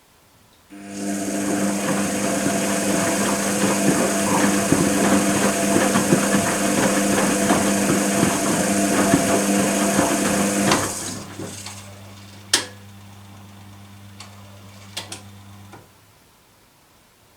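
Privileg Compakt 92 washing machine running a cycle phase: a loud, dense rattle over a steady hum starts about a second in and stops about eleven seconds in. A quieter hum then carries on for a few seconds with a few clicks before it too stops.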